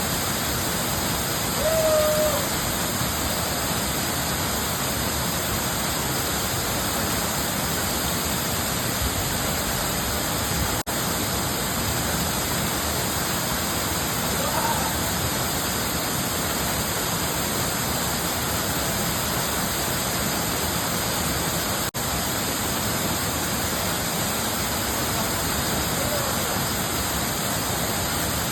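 Waterfall cascading over rocks: a steady, even rush of falling water. A short pitched call rises above it about two seconds in.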